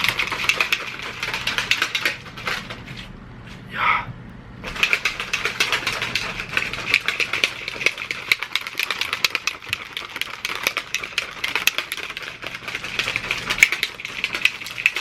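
Protein powder and water being shaken hard in a shaker bottle: a fast, continuous rattling clatter that stops for about a second and a half about three seconds in, then resumes.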